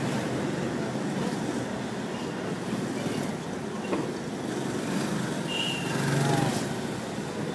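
Car driving through city traffic, heard from inside the cabin: a steady rumble of engine and road noise. About six seconds in there is a short higher-pitched sound.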